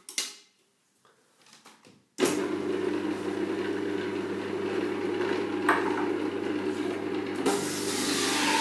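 An electric juicer's motor switches on about two seconds in and runs with a steady hum. Near the end, carrots pushed down its feed chute are ground, adding a louder, hissing grind. Before it starts there are a few light clicks and knocks of handling.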